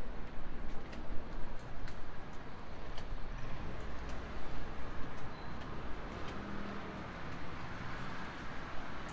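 Low, fluctuating rumble of a jet aircraft passing overhead, with a few faint ticks.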